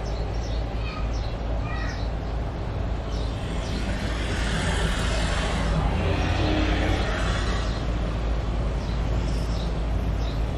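Outdoor city ambience: a steady low hum of distant traffic that swells a little around the middle, with a few short bird calls in the first few seconds.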